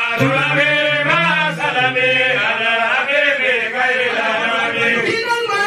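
A man chanting an Arabic devotional song of blessings on the Prophet, in long held notes that bend up and down in pitch.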